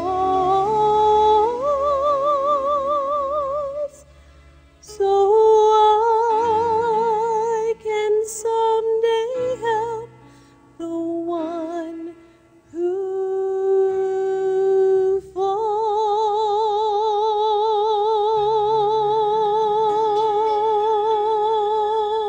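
A woman's solo voice singing a slow gospel ballad with wide vibrato over soft instrumental accompaniment, in phrases broken by short pauses and ending on a long held note.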